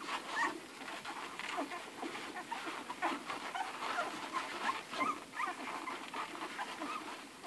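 Litter of newborn Irish red and white setter puppies nursing, with many short, overlapping high squeaks and whimpers and frequent small clicky noises.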